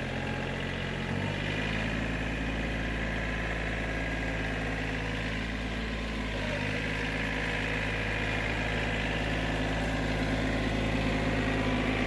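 Compact John Deere 4200 tractor's three-cylinder diesel engine running steadily as the tractor drives off with a brush hog on its 3-point hitch. Its note shifts slightly about a second in and again near six seconds.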